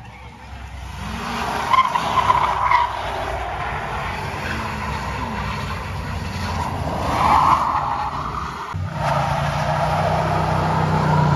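Tyres squealing and skidding on asphalt as an SUV spins donuts under engine power. About nine seconds in the sound changes abruptly to a pickup truck's engine held at steady high revs while it does a smoky burnout.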